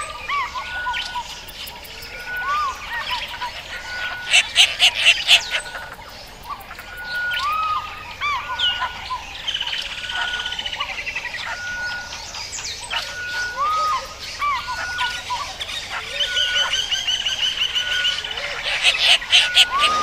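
Bushveld birds singing: one bird repeats a short, clear note just over a second apart, while others add curved chirps and fast trills. Loud rattling bursts come about four seconds in and again near the end.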